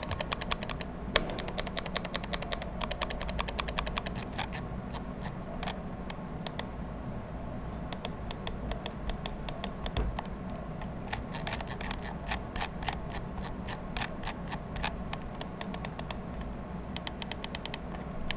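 Razer DeathAdder V2 X HyperSpeed gaming mouse buttons clicking: a click sound test of sharp mechanical clicks in fast runs, with short pauses between the runs.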